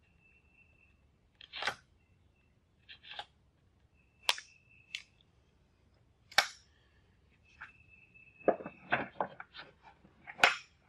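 Cherry veneer edge banding being trimmed by hand along a board's edge: a scatter of sharp cracks and scrapes, with a quicker run of crackling near the end.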